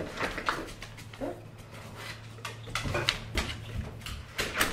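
The handle and latch of a glass French door click and knock as it is opened, and a dog whines briefly, once about a second in, as it is let outside.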